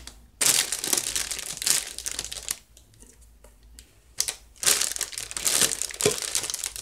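Cellophane gift wrapping crinkling as cellophane-wrapped candles are shifted around by hand, in two bouts with a short pause between them.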